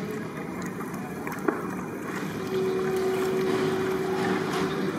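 Hands squelching through a big aluminium pot of wet, spice-marinated chicken pieces as they are mixed. A single sharp tap comes about one and a half seconds in, and a steady low hum comes in about halfway.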